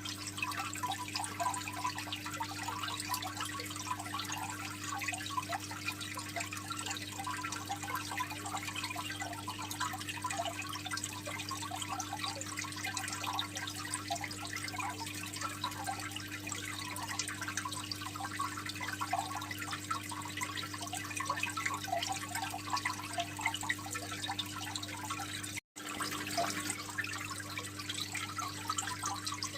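Aquarium water trickling and splashing steadily into the tank, with a steady low hum underneath. The sound cuts out for a split second about 26 seconds in.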